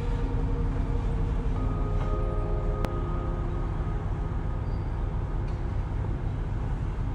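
Jeep engine running at low crawling speed, a steady low rumble with several drawn-out whining tones over it. A single sharp click comes about three seconds in.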